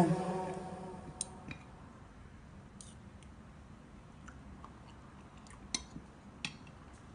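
Music fading out, then faint, scattered clicks of a metal fork and spoon against a ceramic plate, about half a dozen sharp taps spread over several seconds.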